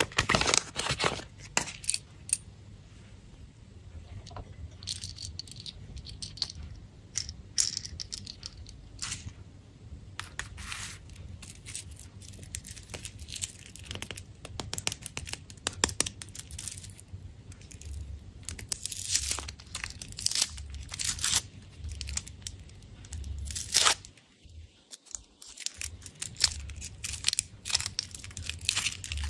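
Foil wrappers of Kinder Surprise chocolate eggs being torn open and crinkled by hand, a dense run of sharp crackles and rustles, with a brief silent gap about two-thirds of the way through.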